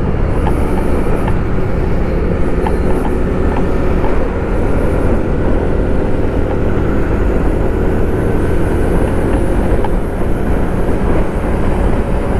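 TVS XL100 moped's single-cylinder engine running steadily at highway cruising speed, about 60 km/h, mixed with wind noise rushing over the microphone.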